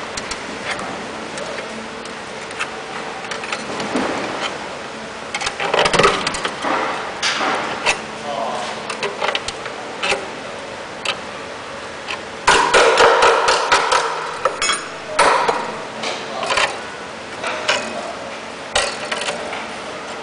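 Thick steel tie wire being pulled through and twisted tight to lash an engine to a wooden pallet: irregular clicks, taps and scraping, with a louder, busier run of clicking and scraping from about twelve to fourteen seconds in.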